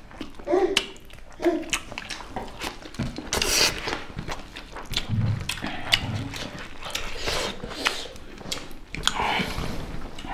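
Close-up eating sounds from two people eating chicken and rice with their hands: chewing, lip-smacking and scattered clicks of biting and handling food, with a couple of short throaty mouth noises about a second in.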